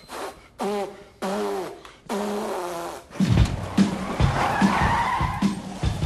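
Three short pitched vocal sounds from a man, then music with a steady, heavy drum beat comes in about three seconds in.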